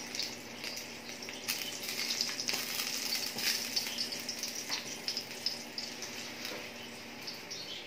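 Sliced onions sizzling steadily in hot mustard oil in an aluminium pan as they brown, stirred with a wooden spoon that clicks and scrapes against the pan now and then.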